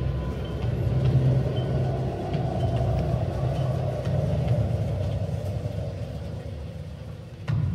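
Deep, rumbling recorded accompaniment music for a Korean traditional-style dance, played over loudspeakers, with a sudden louder hit near the end.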